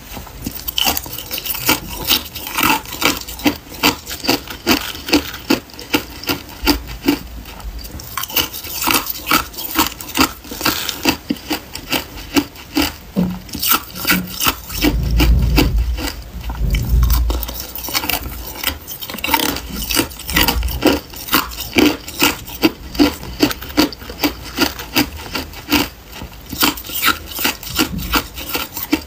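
Hard clear ice cubes being crunched between the teeth: a steady run of sharp crunches, about two a second, with a louder, deeper stretch about halfway through.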